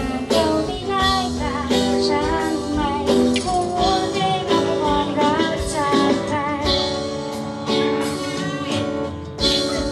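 Live acoustic cover performance: a woman singing a melody into a microphone, amplified through a PA, over an acoustic guitar.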